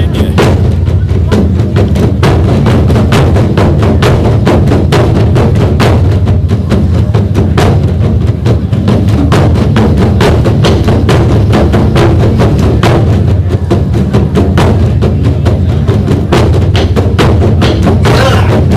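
Drum ensemble of Korean buk drums playing a fast, steady rhythm: sharp, wood-like stick strikes over deep drum beats.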